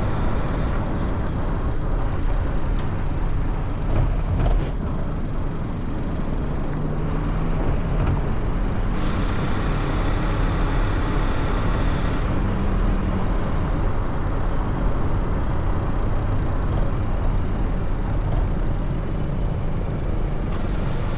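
Car driving through city traffic: steady road and engine noise.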